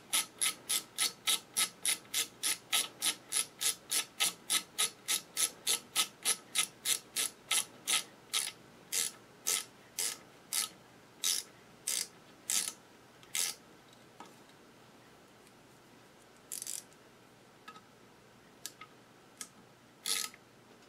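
Craftsman ratcheting screwdriver clicking as it drives a needle-plate screw into a Singer sewing machine, steadily at about three clicks a second. The clicks slow and space out and stop after about thirteen seconds, with a few faint clicks later.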